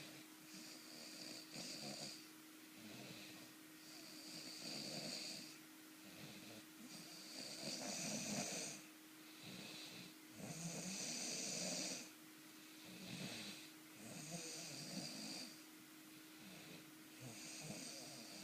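A sleeping person snoring, a rasping, rattling breath roughly every three seconds. A faint steady hum runs underneath.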